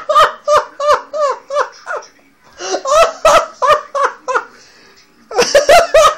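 A man laughing hard in quick, rhythmic bursts of pitched "ha" syllables, breaking off twice and starting again loudly about five seconds in.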